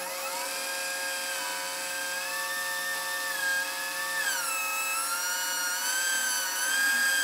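Handheld electric drill running with a small oiled bit boring a pilot hole through a thin steel strip. The motor's whine rises as it spins up at the start, sags lower for a moment a little past halfway as the bit bites into the steel, then recovers and runs steady.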